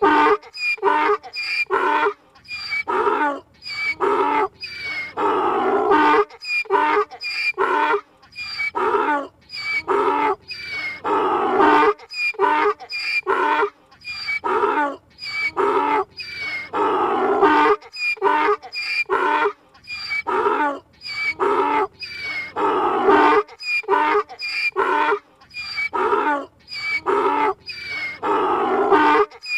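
Donkey braying in a long unbroken run of hee-haws: short, high, squeaky notes alternate with longer, lower, fuller ones, about one hee-haw every two seconds.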